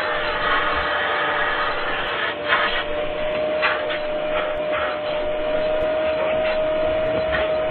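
Vacuum cleaner running: a steady motor whine under rushing air, with the air noise swelling and dipping irregularly.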